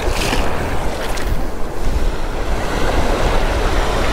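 Small waves washing in over a shallow sandy beach, with wind buffeting the microphone in a low rumble.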